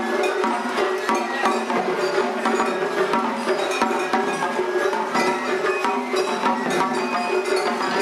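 Japanese festival hayashi music from a dashi float: held flute tones over quick, continuous drum and bell-like metal strikes.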